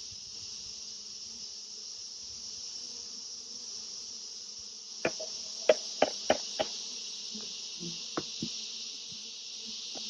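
Steady high-pitched insect chorus with honey bees buzzing faintly. About halfway through come five quick sharp knocks, then two lighter ones: the plastic funnel being tapped against the jar to knock bees down into the alcohol wash.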